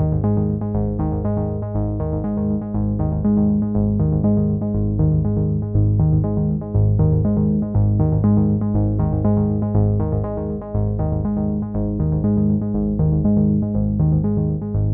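Background music with a steady beat, pulsing notes repeating about four times a second over a low bass line.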